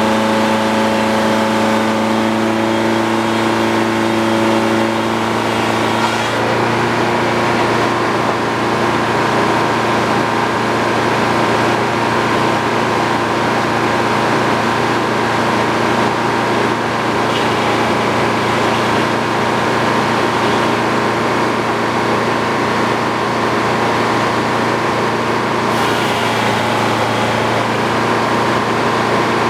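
Sawmill running steadily under power, sawing a beam into boards. About six seconds in, the steady engine tones give way to a rougher, noisier sound, and it shifts again slightly near the end.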